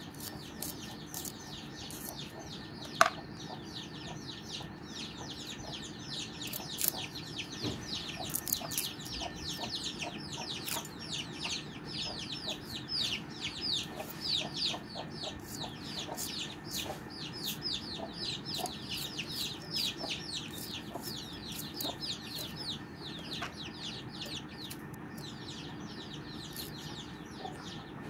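Birds chirping: a long run of quick, high, falling chirps, several a second, with one sharp click about three seconds in.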